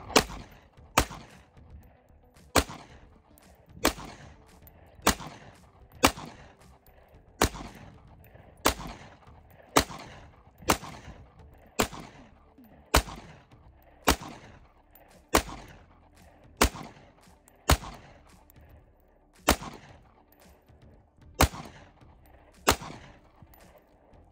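FN 509 pistol firing 9mm 115-grain rounds in slow, steady fire: about twenty sharp shots, roughly one a second, each with a short echo trailing off.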